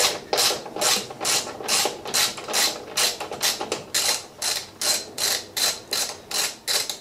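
Hand ratchet wrench being worked back and forth in quick, even strokes, about three a second, each stroke a burst of pawl clicks, as it undoes the nuts holding the top of a BMW E92 M3's front strut to the strut tower.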